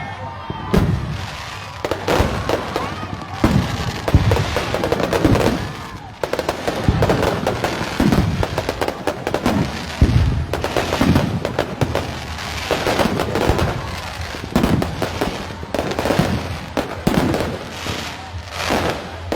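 Aerial fireworks going off in quick succession, a dense string of booms and crackles, with music and voices underneath.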